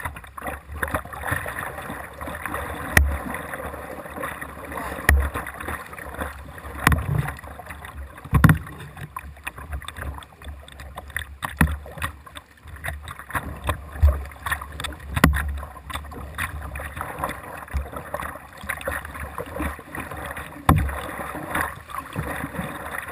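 Double-bladed kayak paddle strokes splashing through pool water, heard close up from the kayak's bow, with sharp knocks and splashes now and then.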